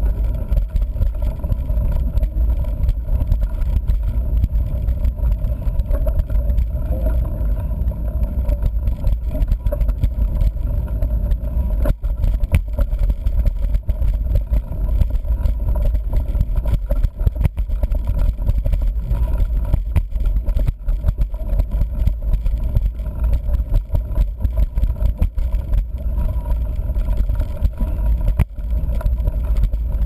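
Mountain bike rolling over a dirt road, picked up by a camera clamped to the front fork: a continuous low rumble of tyre and frame vibration, with many small knocks and rattles from bumps in the track.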